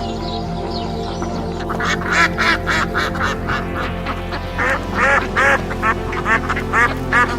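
Duck quacking: a long run of short, nasal calls beginning about two seconds in and coming faster toward the end, over steady background music.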